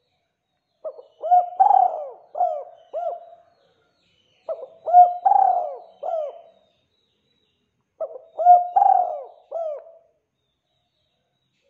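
Spotted dove cooing: three phrases of four or five coos each, about three and a half seconds apart.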